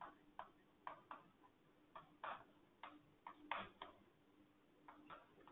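Chalk tapping and scraping on a chalkboard as a phrase is written out: about a dozen short, faint strokes at an uneven pace.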